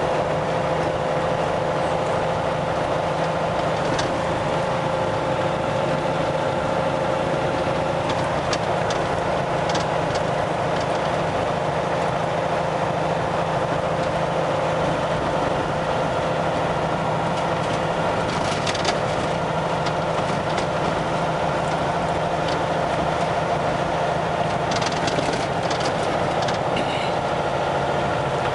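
Kenworth semi truck's diesel engine running steadily at cruising speed, heard from inside the cab on a gravel road: a constant drone with a steady hum, broken by occasional light clicks and rattles.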